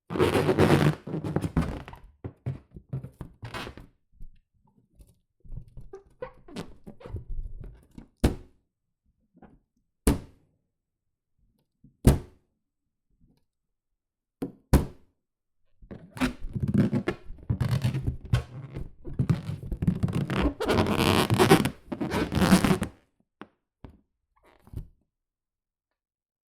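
Hands rubbing and squeezing an inflated rubber balloon: irregular bursts of rubber squeaking and scraping, a few single sharp snaps in the middle, then a long stretch of dense, continuous rubbing that stops shortly before the end.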